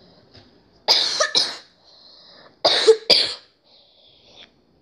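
A person coughing: two double coughs about a second and a half apart.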